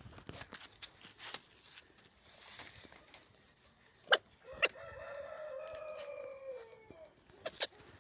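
A rooster crows once: a single call of about two and a half seconds that drops in pitch at its end. Before and after it come sharp knocks and rustles from a baby badger nosing at the phone. The loudest knock comes about four seconds in, just before the crow.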